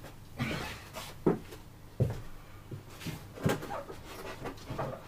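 Irregular knocks and clunks, about five or six, as parts and tools are handled and set down while a saw is being assembled.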